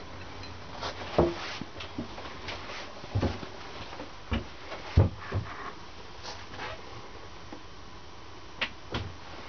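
Scattered light knocks and clicks over a steady low hum, the loudest about one second and five seconds in, with a few more spread through and a pair near the end.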